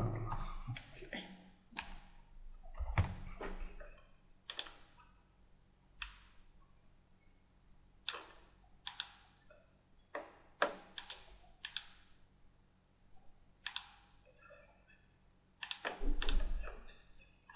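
Scattered single clicks of a computer mouse and keyboard, about a dozen spread unevenly with quiet between them. Near the end they come closer together, along with a brief low bump.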